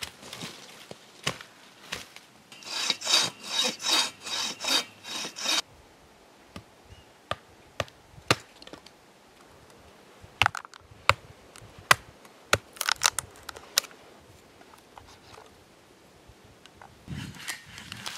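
Hand saw cutting a dead log in a quick run of about ten strokes, roughly three a second. Then sharp scattered cracks as a knife splits and shaves dry wood into kindling, and near the end the rustle of a crumpled tissue.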